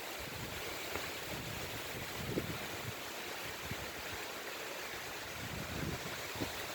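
Strong wind blowing steadily, with irregular low rumbles from gusts buffeting the microphone.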